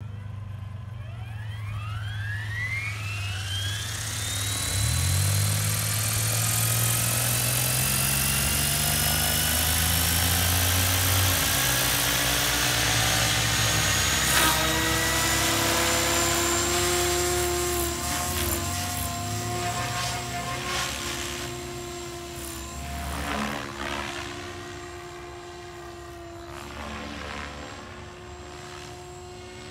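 SAB Goblin Kraken 580 electric RC helicopter, its Xnova 4025 motor and rotor spooling up: a whine rises steeply in pitch over the first few seconds, then holds steady with the rotor blades whooshing. Later the helicopter flies away; the pitch wavers and the sound grows fainter.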